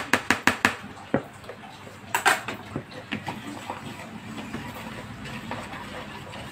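Small wire whisk clicking and scraping against a plastic mixing bowl while an egg is stirred into flour. A quick run of sharp taps on the bowl opens it, a louder clatter comes about two seconds in, and then softer, steadier clicking as the whisking goes on.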